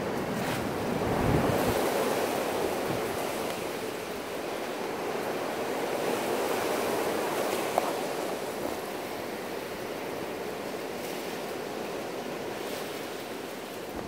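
Strong gusty wind rushing. It swells into a gust with low buffeting on the microphone about a second in, then eases to a steadier rush.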